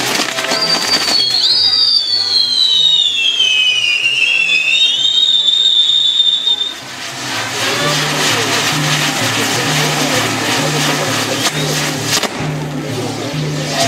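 Castillo firework tower burning, its spark fountains hissing and crackling. Near the start a shrill whistling firework slides down in pitch and back up over about six seconds. Music with a steady, stepped bass line plays underneath.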